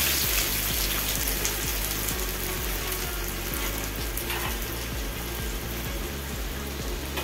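Chopped onion sizzling and bubbling in hot oil in a kadai, a steady frying hiss that slowly eases off, with a brief louder crackle about four seconds in.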